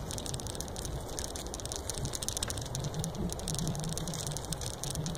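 A bicycle ridden over a grassy trail: tyres running through grass with a dense run of fine clicks and rattle from the bike and a low hum from about two and a half seconds in.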